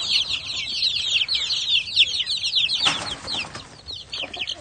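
A flock of about fifty three-week-old chicks peeping, many short, high, downward-sliding cheeps overlapping one another. About three seconds in there is a brief rustle, and the peeping thins out near the end.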